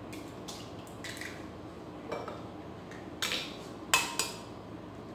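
Eggs being cracked against the rim of a glass blender jar: a series of sharp taps and clinks, the loudest about four seconds in.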